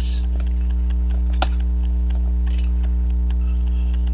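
Loud, steady electrical mains hum: a ground hum picked up by the camcorder's microphone while the camcorder runs on AC power. A few faint, irregular small clicks sound over it, the clearest about a second and a half in.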